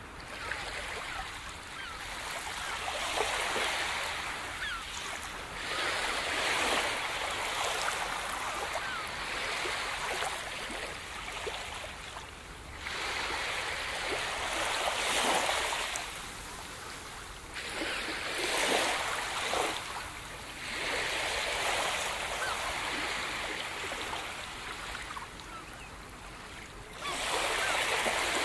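Ocean surf: waves washing onto a shore, the rush swelling and fading every three to five seconds.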